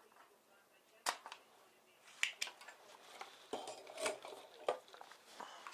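Small metal hand tools clicking and clinking on a workbench during capacitor desoldering: about half a dozen sharp, separate clicks.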